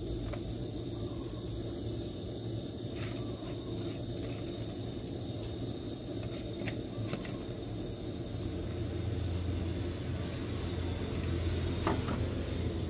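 Steady low rumble of a large pot of broth heating on the burner, the surface bubbling. A few light taps come as noodles are shaken from a plastic basket into the pot.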